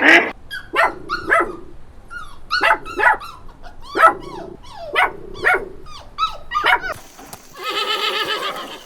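A dog barking: about a dozen short, sharp barks, irregularly spaced and some in pairs. Near the end a horse starts to whinny.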